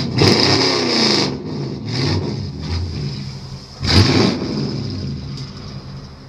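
A motor vehicle's engine running, with loud surges at the start and again about four seconds in.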